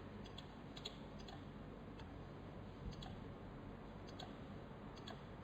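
Faint, irregular computer mouse clicks, some in quick pairs, over a low steady room hum, as points are picked in CAD software.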